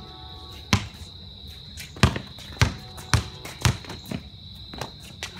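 Basketball dribbled on a concrete driveway: six sharp bounces, four of them about half a second apart in the middle.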